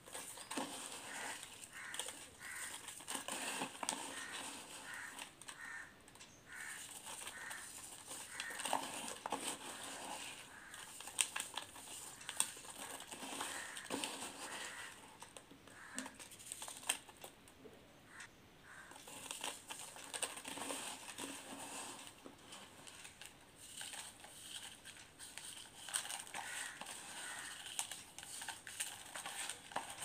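Hand squeezing and crushing wet para (paradichlorobenzene) crystals in a bowl: a dense, continuous crunching and crackling of the granules grinding against each other.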